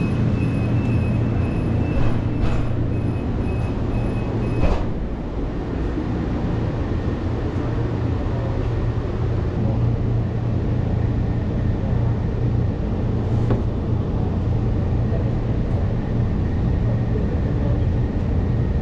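Light-rail car's door-closing warning beeping, a high pulsing tone for about five seconds, ending with a sharp knock as the doors shut. After that comes the steady low rumble of the train car running as it pulls away.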